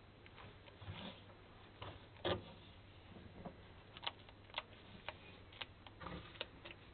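Faint, irregular sharp clicks and crunches of red bearded dragons snapping up and chewing giant (morio) mealworms, with the loudest crunch about two seconds in.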